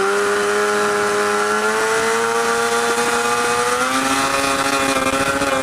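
Two-stroke snowmobile engine in a go-kart running hard at high revs, its pitch climbing slowly and steadily as the kart accelerates.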